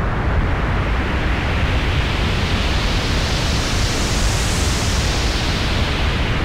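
Synthesized jet flyby made on the KORG iMS-20: a steady rushing noise that grows brighter and hissier to a peak about four seconds in, then dulls again, like an aircraft passing overhead.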